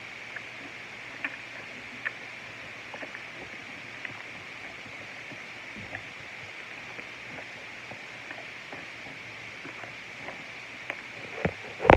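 Homemade slime being handled and stretched: faint scattered sticky clicks and small pops over a steady background hiss, with a louder squish just before the end.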